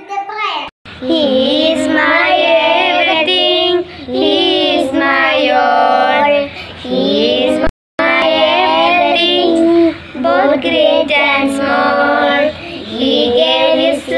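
Young girls singing a song. The singing breaks off for an instant twice, about a second in and about halfway through.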